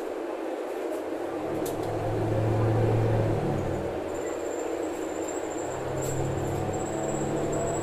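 Cabin noise of a Bonluck JXK6120L natural-gas (NGV) city bus under way: a steady rush of road and engine noise. The engine's low hum swells about a second and a half in, eases after about three seconds and builds again in the second half. A faint high-pitched whine starts about halfway through.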